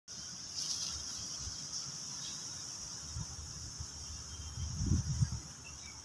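Steady high-pitched insect drone, as from crickets or cicadas, with a few low thumps about five seconds in.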